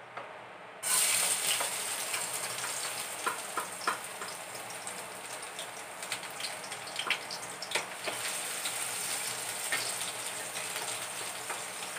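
Chopped garlic hitting hot oil in a wok, starting to sizzle suddenly about a second in. A steady hiss with scattered pops and crackles follows as the garlic is stirred with a wooden spatula at the start of the sauté.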